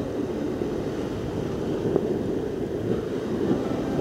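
Sea surf washing over rocks, with steady wind noise on the microphone.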